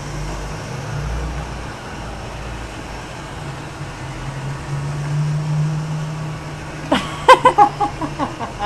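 Roomba robot vacuum running with a steady low hum. Near the end, a quick run of short, loud squeals from a young child.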